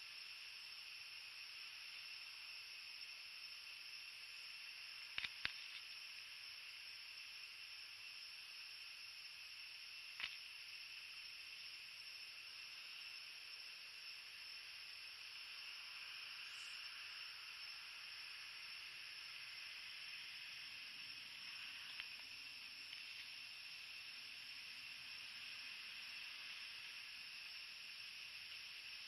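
Faint steady high-pitched hiss of night-time ambience. It is broken by a few soft clicks: a close pair about five seconds in, one about ten seconds in, and a fainter one about twenty-two seconds in.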